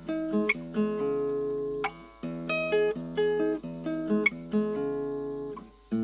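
Nylon-string acoustic guitar music, fingerpicked. The same short phrase of plucked notes is played twice, with a brief break about two seconds in.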